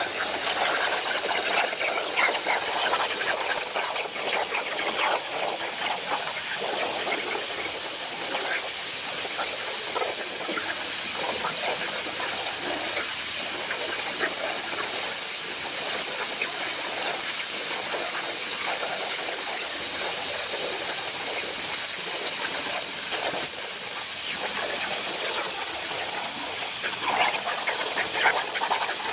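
CNC plasma torch cutting metal over a water table: a steady high hiss of the plasma arc and air jet, with irregular crackling.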